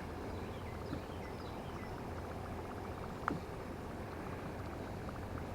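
A steady low engine-like hum with faint regular ticking. Faint high chirps come early on, and a single sharp click sounds about three seconds in.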